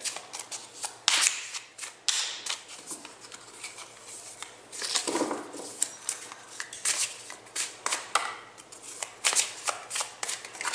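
A deck of tarot cards shuffled by hand, overhand: an uneven run of quick papery slaps and swishes as small packets of cards are dropped from one hand onto the other.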